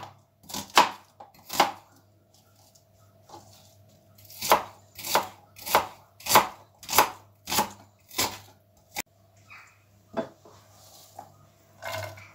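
Kitchen knife chopping an onion on a plastic cutting board. A few strokes, a pause of about two seconds, then a steady run of strokes a little more than half a second apart, with a few lighter cuts near the end.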